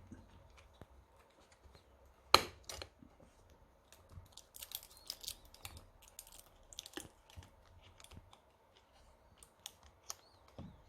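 Small parts being handled by hand: a run of light clicks, taps and short scrapes, with one sharp click about two and a half seconds in.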